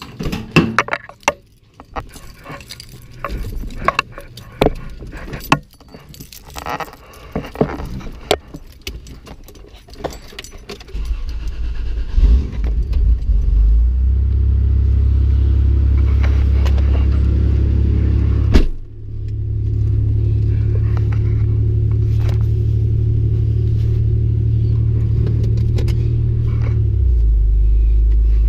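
Keys jangling and clicking at a vehicle's ignition, then the engine starting about eleven seconds in and idling steadily with a low hum. A sharp click about two-thirds of the way through briefly drops the sound before the idle comes back, and the hum deepens near the end.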